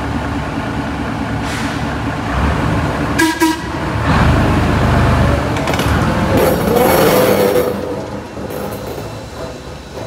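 Railroad locomotive running with a steady engine hum, giving a short horn toot about three seconds in, followed by a louder stretch of engine and rail noise with a hiss that eases off near the end.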